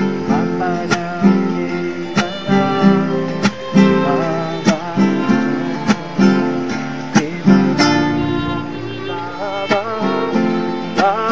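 Acoustic guitar strummed in a steady rhythm under a kiirtan mantra tune, with a wavering melody line above the chords.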